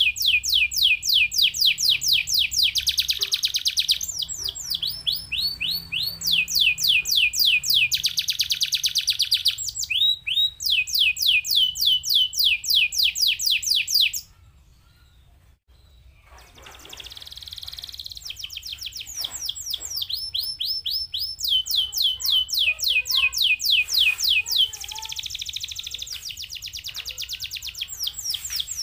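Domestic canary singing rapid trills of repeated falling notes, pausing for about two seconds midway before starting again.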